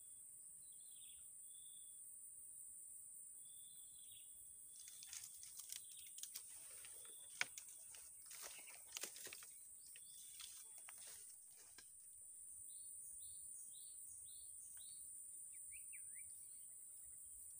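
Quiet swamp ambience with a steady high-pitched hiss. Birds give short whistles in the first few seconds, a quick series of chirps later, and a few falling notes near the end. Scattered sharp clicks and rustles come in the middle.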